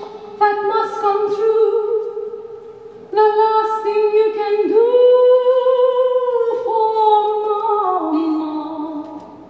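A woman singing unaccompanied in long held notes with slides between them. A swell about five seconds in is followed by a descending phrase that fades near the end.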